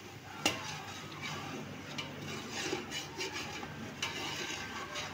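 Long metal ladle stirring and scraping chicken pieces through thick masala in a metal handi, with a sharp clink of ladle on pot about half a second in and a few lighter knocks later.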